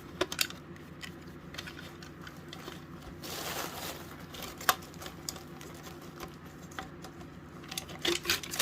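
Small plastic clicks and taps from a smoke alarm's housing and parts being handled, with a short rustle about three seconds in, one sharp click near five seconds and a quick run of clicks near the end. A steady low hum lies underneath.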